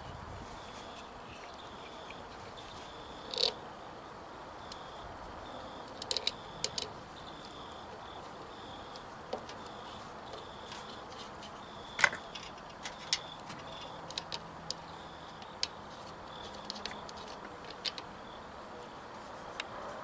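Small irregular metallic clicks and taps of cable ring terminals, washers and nuts being fitted by hand onto the studs of a lawnmower starter solenoid. The loudest click comes about twelve seconds in.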